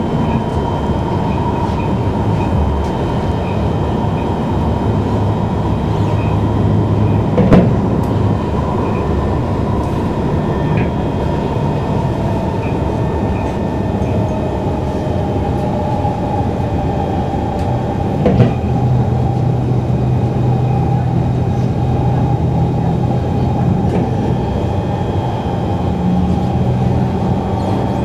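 Inside a Singapore MRT train running between stations: a steady rumble of wheels on rail with a thin whine above it. Two sharp knocks stand out, one about seven seconds in and another about eleven seconds later.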